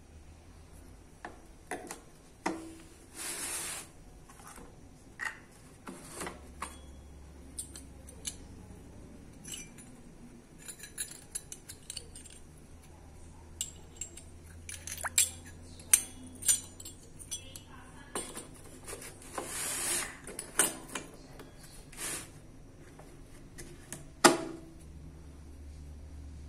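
Steel drill-bit-set accessories (hole-saw blades, bits and a hex adapter) clinking and clicking as they are handled and knocked against each other and the plastic case, with irregular metallic clicks, a few sharper than the rest, and a couple of brief scraping sounds.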